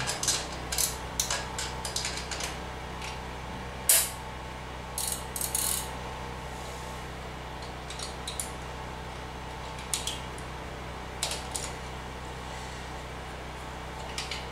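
Hand wrenches clinking on the chain adjuster nuts at the swingarm end of a Honda Grom as the 10 mm lock nut and 12 mm adjuster nut are loosened: scattered metal clicks and clinks, the loudest a single sharp clank about four seconds in.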